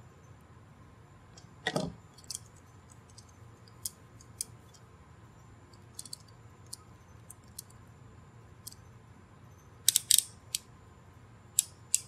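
Small metal parts of a BNC connector clinking and rattling as they are handled, with a few scattered ticks. About ten seconds in, a hand coax crimping tool closes with a quick run of sharp clicks.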